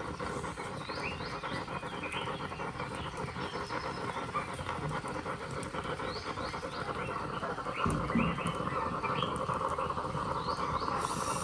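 Birds chirping with short repeated calls over a steady insect chorus, with a single low thump about eight seconds in.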